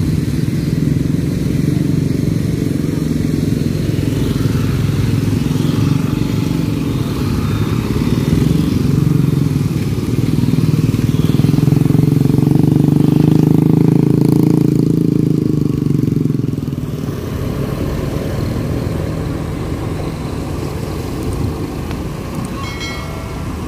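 Motor vehicle engines running in slow, stalled traffic, with motorcycles passing close by; the rumble is loudest about ten to sixteen seconds in, then eases.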